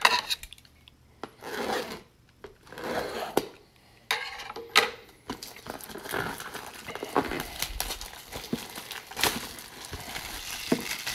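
Plastic shrink-wrap being picked at, torn and peeled off a sealed cardboard trading-card box: irregular crinkling and scratching with a few sharp clicks of fingers and plastic against the box.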